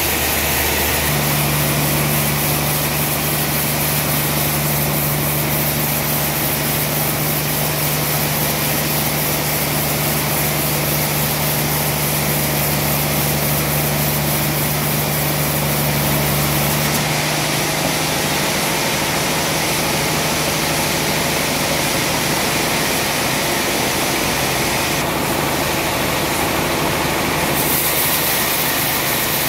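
Large sawmill band saw running steadily between cuts, not in the wood, with a constant motor hum whose tone shifts about halfway through.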